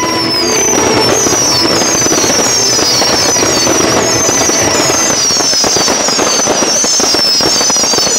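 Fireworks going off: a dense, continuous crackling with a rapid run of high whistles, each sliding down in pitch, about two or three a second.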